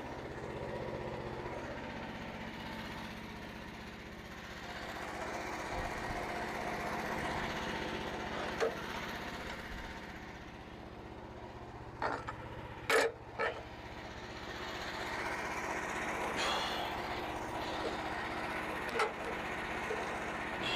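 Frontier OS27 portable band sawmill running as its band blade saws through a maple log. The engine sound swells and eases slowly with the cut, and a few sharp knocks and clicks come about midway and again near the end.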